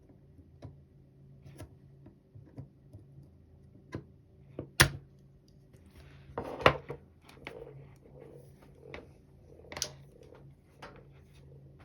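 Spring-loaded desoldering pump being cocked and released over melted solder, with small clicks and taps throughout. The pump snaps sharply about five seconds in and again just under seven seconds in, and once more near ten seconds. A faint steady hum runs underneath.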